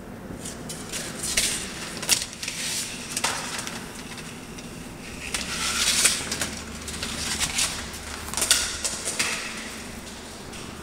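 Irregular scuffs, clicks and knocks from a person walking and handling a camera, the loudest at about 1.5, 2, 6 and 8.5 seconds, over a low steady hum.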